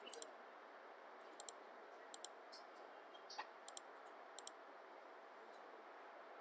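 Computer mouse clicking: several quick pairs of sharp clicks in the first four and a half seconds, over a faint steady hiss.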